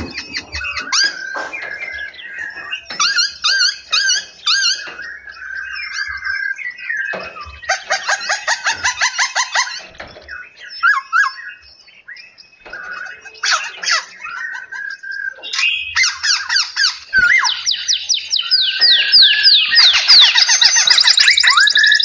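Several caged songbirds singing and calling over one another: fast trills, repeated whistled notes and quick rising and falling phrases. The chorus grows louder and denser over the last few seconds.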